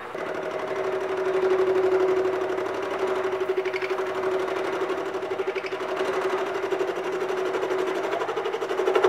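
Bridgeport milling machine spindle turning a homemade single-point fly cutter through an O-ring groove in a Land Rover Series III gearbox casing: a steady whine with a fast fluttering pulse from the interrupted cut. It grows louder near the end.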